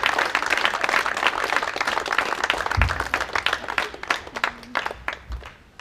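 Crowd applauding, dense clapping that thins out and fades away over the last two seconds or so.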